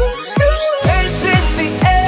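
Upbeat electronic pop music with a steady kick drum about twice a second. A rising sweep in the first second leads back into the full beat and a sustained melody line.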